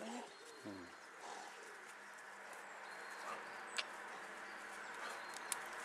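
Quiet garden ambience with faint bird calls. A brief low murmur of a voice comes just after the start, and a couple of soft clicks come later.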